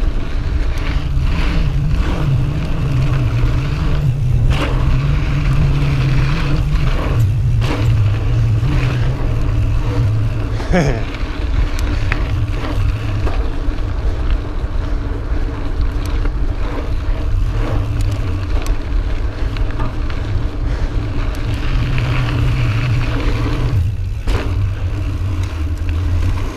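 Pivot Mach 429 Carbon mountain bike rolling fast over a dirt singletrack: tyre noise on the dirt and heavy wind buffeting on the microphone, with scattered clicks and knocks from bumps and a brief rising squeak near the middle.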